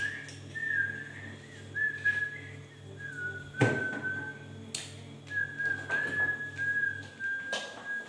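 A person whistling a wavering tune, with short breaks between phrases. A few sharp clunks of handling come through, the loudest about three and a half seconds in, over a low pulsing hum that stops about seven seconds in.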